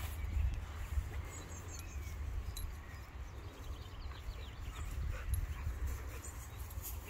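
A dog whimpering faintly, over steady wind rumble on the microphone.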